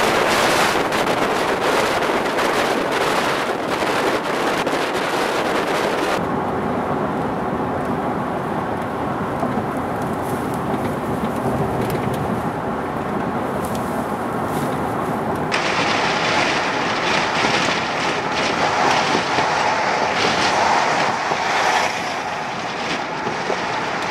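Strong wind blowing hard and buffeting the microphone in a loud, steady rush; for several seconds in the middle the hiss turns duller before the full rush returns.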